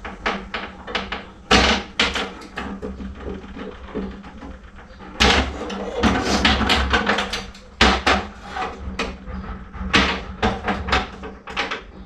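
Freshly cast lead jigs being trimmed and handled: irregular clicks and clacks, with several sharper knocks, over a steady low hum.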